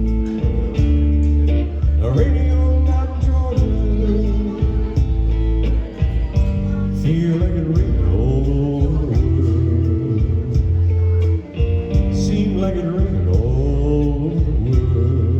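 Live band playing the slow closing bars of a soul-blues ballad: guitar over a steady bass, with some singing or bending lead lines rising and falling at times.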